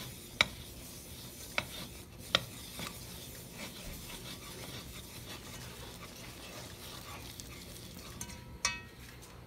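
Small spatula stirring and scraping a butter-and-flour roux around an aluminium pan over low heat, with a faint sizzle underneath. The spatula knocks sharply against the pan four times in the first three seconds, and there is a short squeak near the end.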